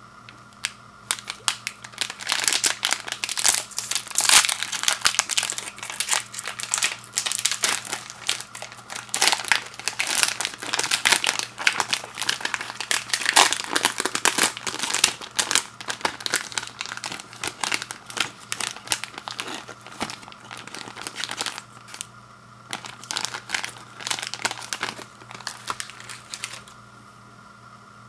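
Packaging of breakfast biscuit packs being handled and opened: irregular crinkling with some tearing, starting about a second in and stopping near the end.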